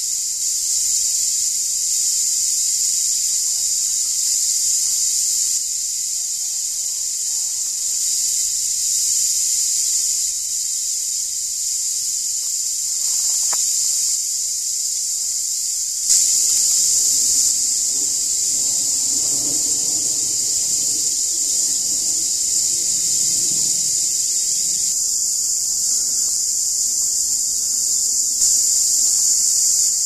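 Cicadas calling in a loud, continuous high-pitched chorus that never breaks, stepping up slightly in level about halfway through.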